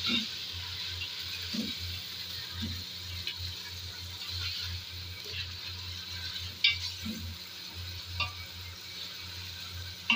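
Beef pieces on the bone sizzling in hot oil with fried onions in a pressure cooker as they are stirred with a wooden spoon. The spoon knocks against the pot a few times, sharpest about two-thirds of the way through.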